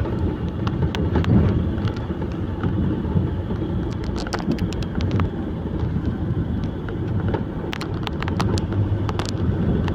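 Logging truck engine running steadily with a low rumble. Scattered sharp clicks and knocks come in from about four seconds in.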